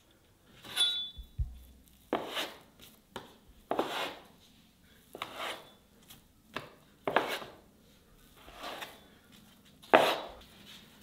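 Food preparation for baklava: about seven short strokes of hand work, roughly one every one and a half seconds, the loudest near the end.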